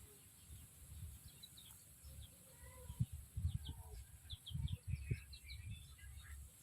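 Birds giving short, high chirps, over low, dull thumps and rumble that are loudest about three seconds in and again near five seconds.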